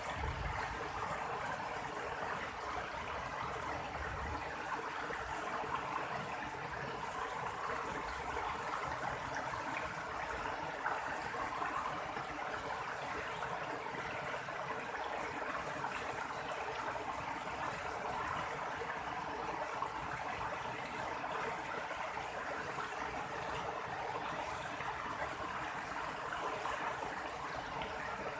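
River water flowing steadily over stones, a continuous even rushing and babbling.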